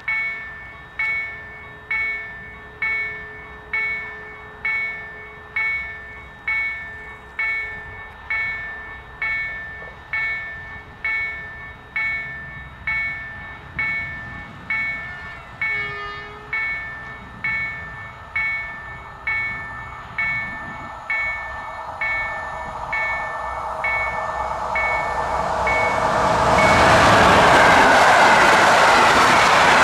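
Level-crossing warning bell ringing steadily about once a second, with a brief distant horn about halfway through. Near the end the bell stops as a passenger train's coaches pass through the crossing at speed with a loud rush of wheels on rails.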